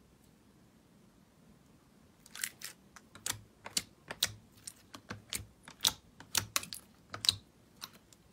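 Clear slime in a plastic tub being pressed and poked with fingers, giving a quick, irregular run of sharp clicking pops, about three or four a second, starting about two seconds in.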